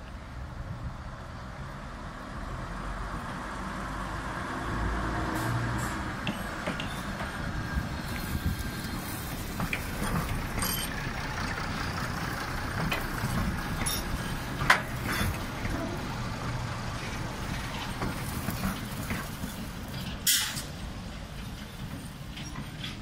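Stainless-steel Queensland Rail diesel railmotor running past close by, its engine humming over steady running noise, with scattered sharp clicks from the wheels and track, the loudest about fifteen seconds in. A brief hiss of air comes about twenty seconds in.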